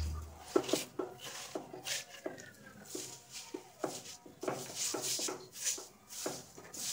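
A silicone spatula stirs and scrapes dry vermicelli frying in oil in a nonstick wok. It makes irregular rustling scrapes, about two or three strokes a second.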